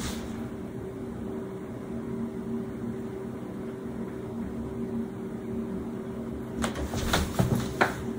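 Steady hum of a household appliance or fan, with a few light clicks and taps about seven seconds in.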